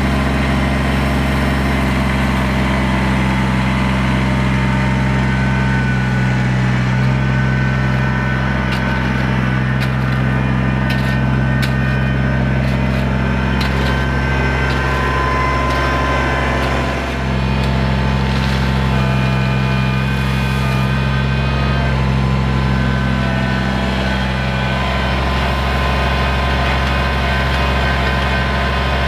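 Kubota BX23S compact tractor's three-cylinder diesel engine running steadily at a constant speed. A few light clicks and scrapes of a shovel in gravel come through in the middle.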